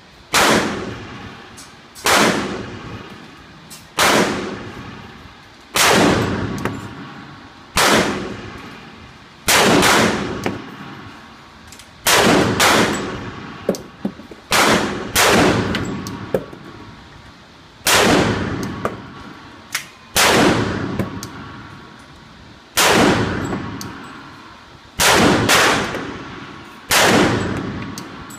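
Glock G21 .45 ACP pistol firing slow aimed shots, about one every two seconds, sometimes two in quick succession. Each shot is sharp and followed by a long ringing echo.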